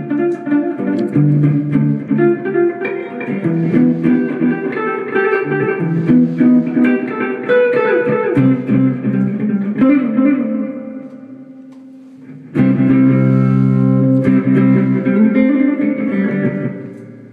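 Guitar playing: a run of single plucked notes that trails off a little past the middle, then one loud chord struck about three-quarters of the way through that rings out and fades.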